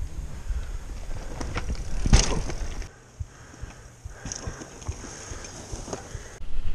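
Mountain bikes rolling over a dirt jump trail close to the microphone, with the crunch and rattle of tyres on dirt and one heavy thud about two seconds in. The sound drops abruptly twice, at cuts between takes.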